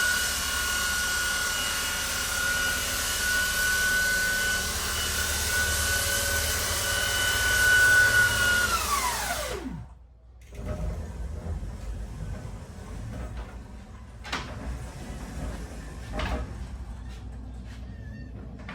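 Electric sander running with a steady high whine, then switched off about eight and a half seconds in, its pitch falling as the motor winds down to a stop. Afterwards a quieter background with a couple of short knocks.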